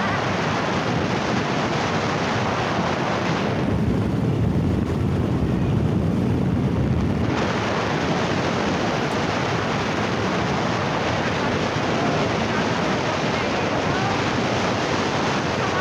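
Wind buffeting a phone microphone on a moving motorcycle: a steady rushing roar. From about four to seven seconds in, the hiss thins out and the low rumble grows stronger.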